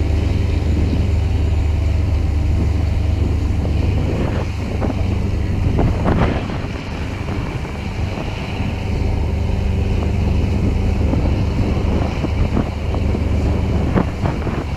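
Boat engine running steadily under load during a tow, a deep, even drone, with wind buffeting the microphone in gusts, strongest about six seconds in.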